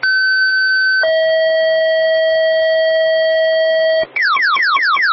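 Fire dispatch two-tone page: a steady high electronic tone for about a second, then a lower steady tone for about three seconds. About four seconds in, it gives way to a fast run of falling electronic sweeps, about five a second.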